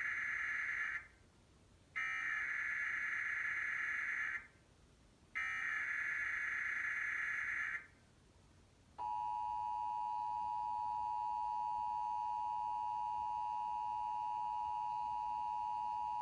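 Emergency Alert System monthly test on TV broadcast audio: three bursts of warbling SAME header data, the first already under way and ending about a second in, then a short pause and the steady two-tone EAS attention signal starting about nine seconds in. Together they open a required monthly test, with the spoken test message to follow.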